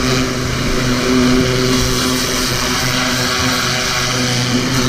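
Small engine of a 2400 PSI Kärcher pressure washer running steadily, with the hiss of its high-pressure spray jet washing dirt off the bike.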